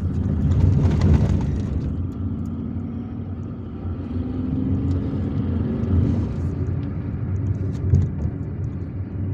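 Car driving along a road, heard from inside the cabin: a steady low rumble of engine and tyres. It swells briefly about a second in, and there is a single thump about eight seconds in.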